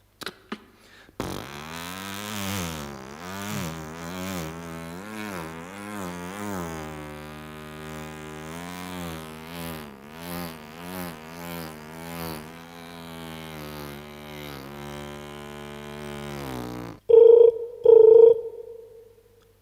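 A man's vocal sound effect: a long hummed tone whose pitch wobbles up and down. About seventeen seconds in, it breaks off into two short, loud, steady beeps, a pair like a telephone's double ring.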